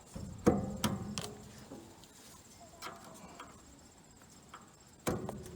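A few sharp metallic clicks and knocks, the loudest about half a second to a second in and again near the end, from a stiff roller coupler chain being worked off the combine head's drive coupler by hand.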